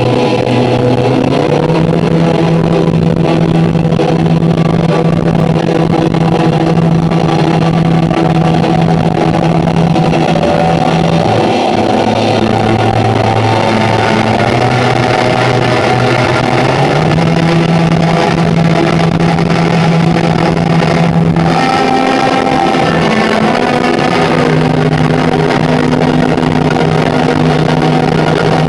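Live amplified instrumental music from electric guitars and violin, loud and even, built on long held low notes that shift to a new pitch every several seconds.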